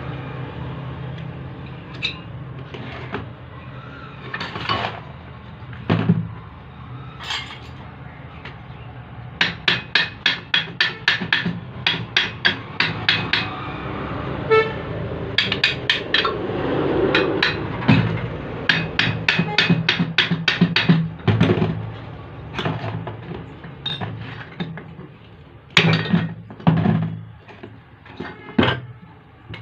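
A metal hammer striking a Maruti car alternator's housing to knock the end frame loose, in quick runs of several blows a second with single strikes between.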